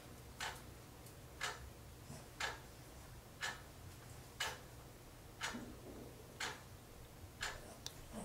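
Wall clock ticking, faint even ticks about once a second as the second hand steps round.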